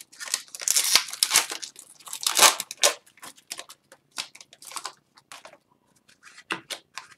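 An Upper Deck Series 1 hockey card pack's wrapper being torn open and crinkled for about three seconds. Then a few short soft swishes and clicks as the stack of cards is pulled out and thumbed through.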